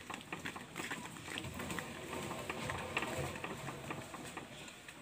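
Scattered light knocks and scuffs of albasia logs being handled and pushed onto a wooden truck bed by hand.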